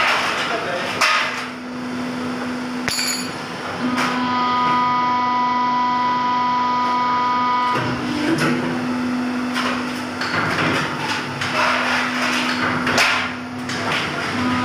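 Hydraulic press's electric motor and pump running with a steady hum. A higher whine comes in for a few seconds about four seconds in, and irregular knocks and noisy bursts run through it.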